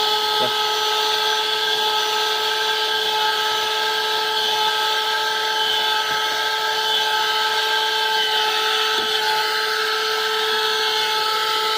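Handheld 12 V car vacuum cleaner running steadily with a high, even motor whine, its brush nozzle working over a car floor mat.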